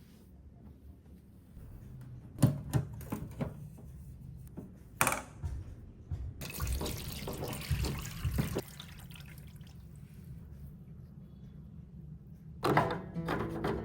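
Water running from a tap for about two seconds in the middle, with scattered knocks and clatter of household things being handled before it and a dense burst of clatter near the end.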